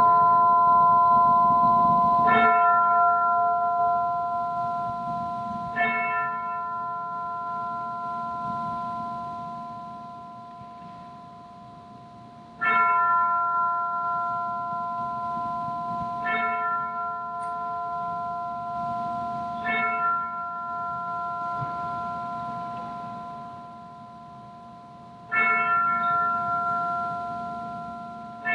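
A bell tolling slowly, struck about six times at uneven intervals of a few seconds. Each stroke rings on and fades before the next, and some strokes are louder than others.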